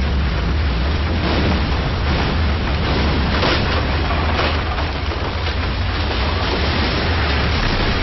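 Deep, continuous earthquake rumble with a heavy low end and noisy rattling above it. It swells in several brief louder surges, the strongest about three and a half seconds in.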